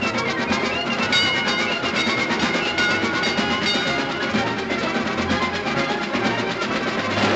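Fast orchestral cartoon music: piccolo, flute, clarinet and trumpet over running violin and viola figures, with a snare drum keeping a busy steady beat.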